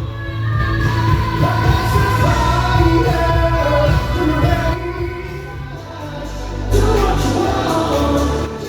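Background music: a song with singing over a steady heavy bass.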